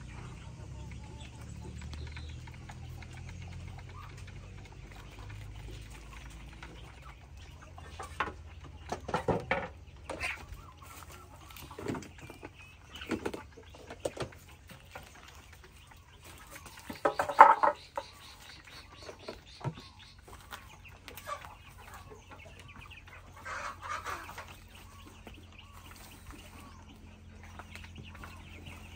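Backyard chickens clucking and calling in short, separate bursts, with the loudest call a little past halfway.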